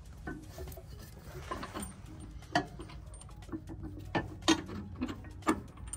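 Irregular metallic clicks and knocks of hand tools and a shock absorber's bolts and mounts being handled during a truck's shock replacement, with a few sharper knocks in the second half.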